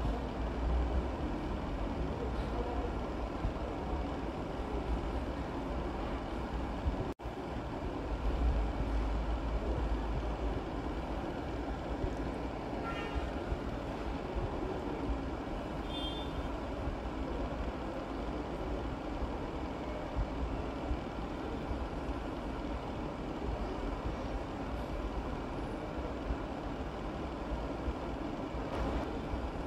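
Steady fan and ventilation noise of a commercial kitchen, an even rushing hum heavy in the low end, which cuts out for an instant about seven seconds in.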